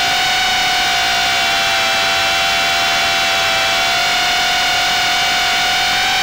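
Brushless motors and 3-inch props of a small FPV quadcopter whining steadily in flight, heard from the onboard camera over a hiss of prop wash. The pitch sags slightly in the middle and climbs back near the end as the throttle eases and picks up again.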